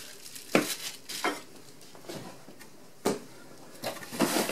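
Items being handled in an open cardboard box: about five light knocks and taps, then rustling of cardboard and packaging near the end.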